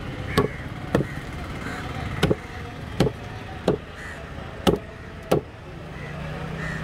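A large curved chopping blade hacking through emperor fish pieces onto a wooden table: about seven sharp chops, roughly one a second at uneven spacing, over a steady background rumble.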